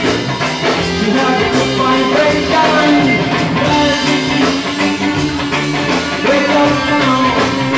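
Live rock band playing amplified: electric guitars over bass guitar and drum kit, with no sung words.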